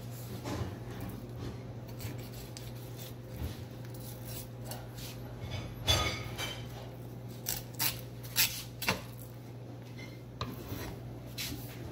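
A knife cutting and scraping along a sockeye salmon's backbone on a wooden cutting board, with scattered sharp clicks and knocks of the blade against bone and board; the loudest, a ringing clank, comes about halfway through. A steady low hum runs underneath.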